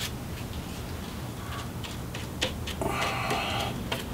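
A glue brush tapping and dabbing thick hide glue onto a shield's edge: scattered light clicks and taps, with a short scratchy scrape about three seconds in.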